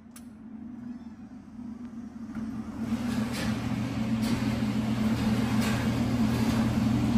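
Electric target carrier motor running steadily as it brings the paper target back down the shooting lane, a low hum growing steadily louder as it approaches.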